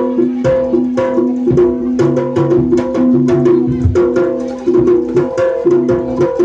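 Jaranan ensemble music played live: quick, dense drum strokes over ringing, sustained pitched notes that shift between a few pitches.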